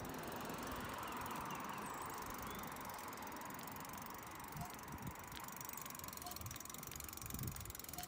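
Mountain bike rolling along a paved path: steady tyre and riding noise, with a few soft knocks as it goes over bumps past the middle.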